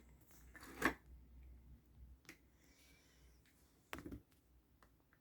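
A few short, sharp clicks and knocks from handling: one about a second in, a faint one a little after two seconds, and a louder double knock about four seconds in.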